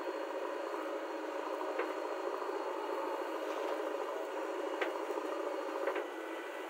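JCB 3DX backhoe loader's diesel engine running steadily under digging load as the backhoe scoops and dumps soil, with a few short knocks about two, five and six seconds in.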